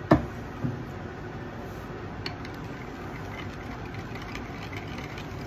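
A sharp knock, then a softer one about half a second later, as the dye bottle is put down on the workbench, over the steady hum of a small electric fan. Later come faint light clinks of a metal spoon stirring the colorant into liquid soft plastic in a glass measuring cup.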